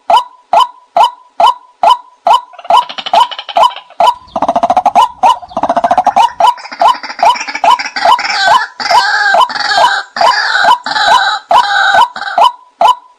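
White-breasted waterhen calls played back as a hunting decoy. A steady series of short 'kwak' notes comes about two and a half a second. A couple of seconds in, a busier chorus of harsh croaks and a fast rattle joins them, and it falls back to the plain notes near the end.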